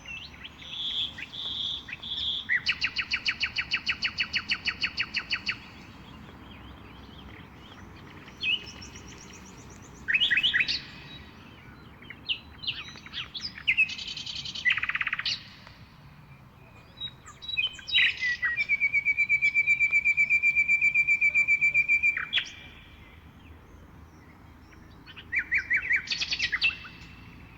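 A songbird singing in separate phrases of fast repeated notes and trills, the longest trill held for about four seconds.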